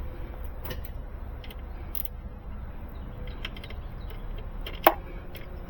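Light mechanical clicks and handling noises from tools and car parts being worked on, with one sharper click about five seconds in, over a low steady rumble.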